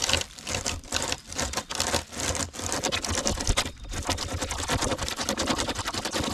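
Hand chainsaw chain strung on a bent green sapling as a bow saw, cutting into a log: a dense rattling rasp of the chain's teeth in the wood, in repeated back-and-forth strokes.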